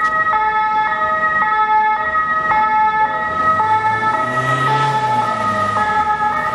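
French emergency vehicle's two-tone "pin-pon" siren, alternating between two notes about every half second. A passing vehicle's engine rises and fades underneath about four to five seconds in.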